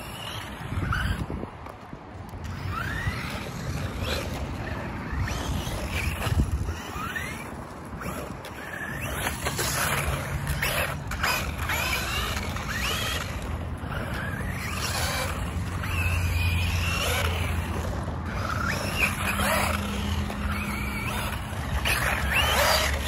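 Wiaorchi 1/16 brushless RC truck driving on concrete, its motor whine rising and falling over and over as it speeds up, slows and turns, over a rumble of tires and drivetrain. The drivetrain sounds rough, like it's gonna break any second, which the owner suspects is from it being geared too high.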